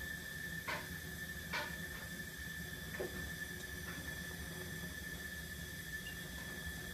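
Bunsen burner flame hissing steadily under a steady high whine, with three light clicks from the brass ball-and-ring rods knocking together: about a second in, again a second later, and near three seconds.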